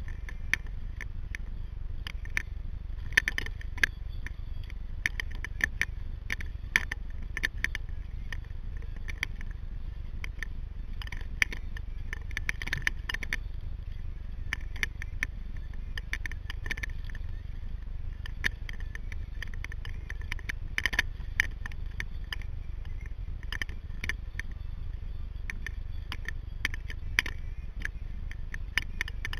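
Small irregular splashes and drips of seawater against a sea kayak's hull, over a steady low rumble.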